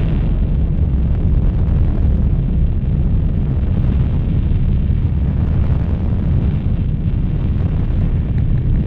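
Harsh noise drone music: a loud, dense, distorted low rumble with a hiss over it, holding steady with no beat or melody.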